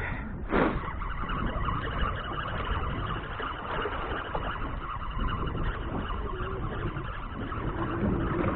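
Westerly wind buffeting the microphone on an open boat: a steady rush with low rumble, and a brief louder sound about half a second in.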